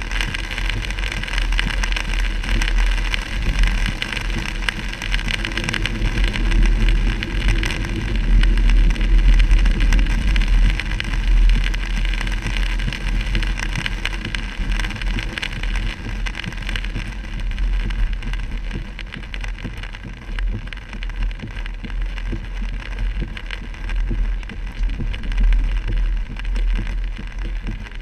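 Heavy rain pelting a moving car's roof and windshield, over the steady hiss of tyres on a flooded road and a low rumble of the car in motion, heard from inside the cabin.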